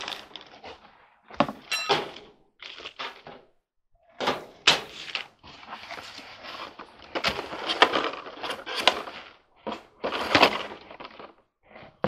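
Irregular knocks, clatter and scraping of parts and tools being moved and set down, with one short metallic ring about two seconds in.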